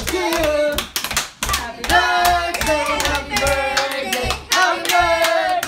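Several voices singing a song with long held notes while hands clap along.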